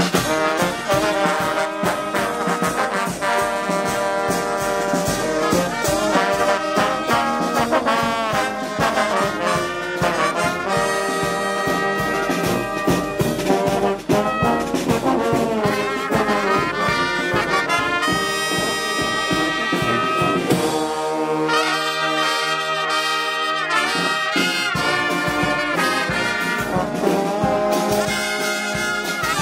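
A marching brass band playing: trumpets, trombones and sousaphones over snare drum, bass drum and cymbals. The drums drop out for a few seconds past two-thirds of the way through, leaving held brass chords.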